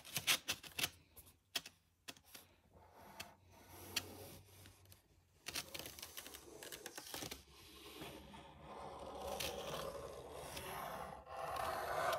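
Black felt-tip pen scratching across thick white paper as a drawn line is traced, with a few light clicks and taps in the first second or two. The scratching comes in short strokes at first, then runs in longer continuous strokes toward the end.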